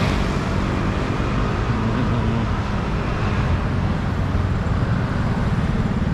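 Road traffic: cars and other vehicles running past with a steady low engine and tyre rumble.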